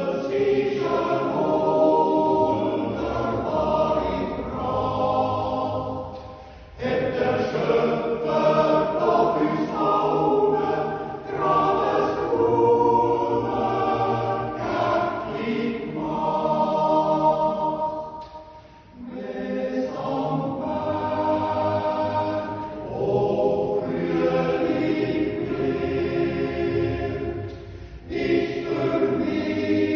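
Swiss men's yodel choir singing a Jodellied a cappella in sustained close-harmony chords, with brief pauses between phrases about six, eighteen and twenty-eight seconds in.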